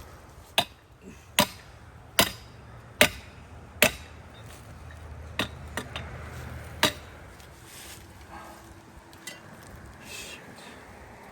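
A hammer striking hard, five blows in a steady rhythm under a second apart, then a short pause and three more irregular blows.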